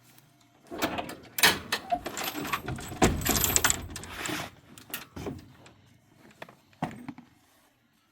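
A busy run of knocks, clicks and rattling, loudest in the middle, then a few single knocks: objects being handled.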